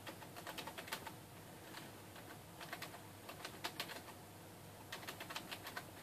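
Typing on a computer keyboard: faint key clicks in about four quick runs, with short pauses between.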